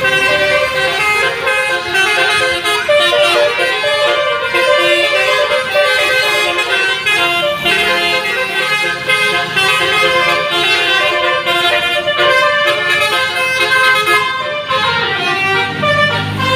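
A bus's Basuri telolet air horn playing a fast, stepping multi-note melody without a break. A deeper rumble comes in under it about eight seconds in and again near the end.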